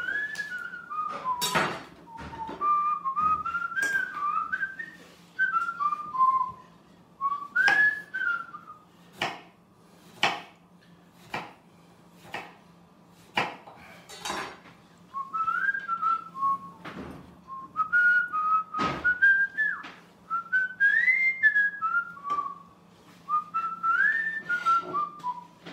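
A person whistling a wandering tune, with sharp knocks of a chef's knife cutting lemon slices on a wooden cutting board about once a second.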